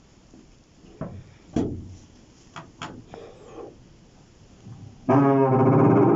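A couple of short creaks and a few clicks, the squeak from an Opel Astra, then loud music with sustained pitched tones cuts in suddenly about five seconds in and is the loudest sound.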